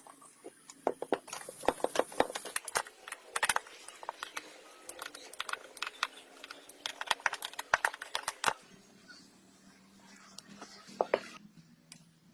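Rapid, irregular clicks and taps of hand tools and small metal parts being handled. They stop about eight and a half seconds in, leaving a faint low hum with a few more clicks near the end.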